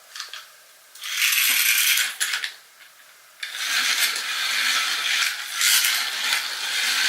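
Small battery-powered toy car running along a flexible plastic race track, a fast plastic rattle and whir. It runs for about a second, stops briefly, then starts again about three and a half seconds in and keeps going.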